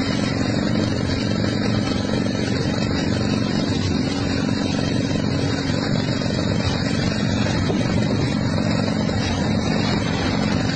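A vehicle engine running steadily: an even low drone under a constant rush of noise, with no change in speed.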